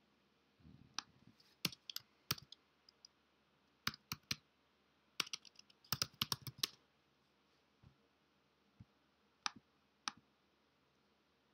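Computer keyboard keys tapped in short uneven bursts, with a quick run of keystrokes around the middle, as a search term is deleted and retyped. A soft low thud comes under a second in, and two single clicks follow near the end.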